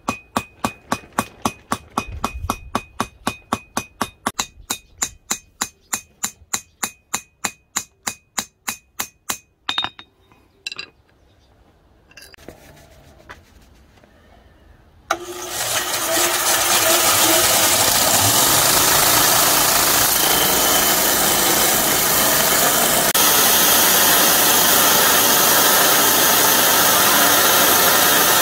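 Rapid light hammer blows on a knife's steel handle resting on an anvil, about four a second with a ringing note, stopping about nine seconds in. After a few scattered knocks, a belt grinder starts about fifteen seconds in and runs steadily with the blade ground against the belt.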